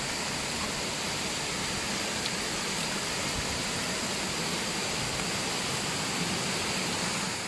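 Fast-flowing river water at a waterfall rushing steadily, the current running strong and full.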